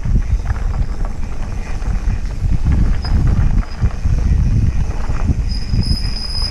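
Mountain bike riding over a dirt singletrack trail: a heavy low rumble of wind on the bike-mounted camera's microphone, with the tyres and bike rattling and jolting over the bumpy ground. A thin high tone sounds briefly near the end.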